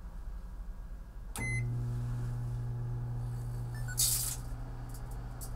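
Microwave oven switching on with a click and a short beep, then running with its steady low hum. Near four seconds in, the CD inside arcs with a brief loud crackle of sparks, followed by a few fainter snaps.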